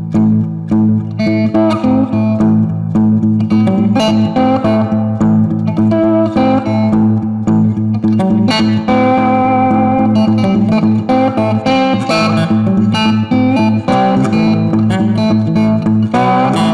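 Background music: an electric guitar picking a melody over a steady bass line.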